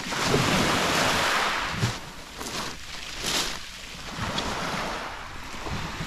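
Small sea waves washing onto a pebble beach, with wind buffeting the microphone. The wash is loudest in the first couple of seconds, then falls back to smaller surges.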